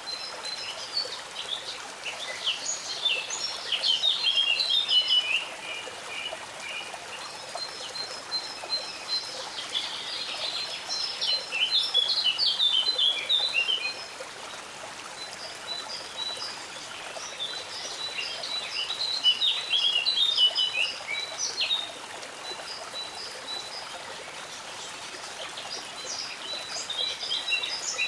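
A songbird singing the same song over and over, about every eight seconds. Each song is a run of even, high repeated notes followed by a tumbling warble that drops lower. Underneath is the steady trickle of a stream.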